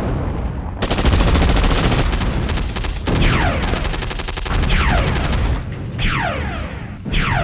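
Action-film sound effects: dense, rapid machine-gun fire in long volleys with brief breaks. From about three seconds in, several quick zaps that sweep down in pitch cut through the gunfire.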